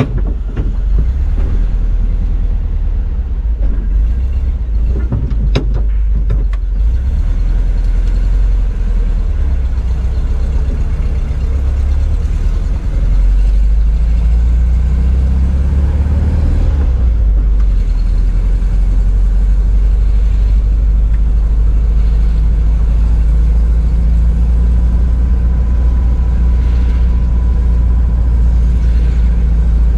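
Volkswagen Kombi van on the road: steady low engine and road rumble, a little louder from about 13 seconds in.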